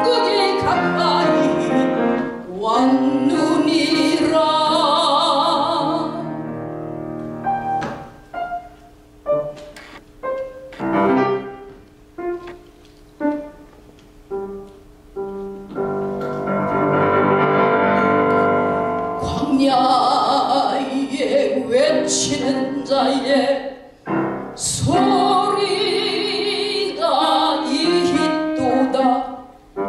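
A woman singing a slow song with vibrato to piano accompaniment. About a third of the way in the voice drops out and the piano plays quieter single notes and chords alone for several seconds, then the singing comes back.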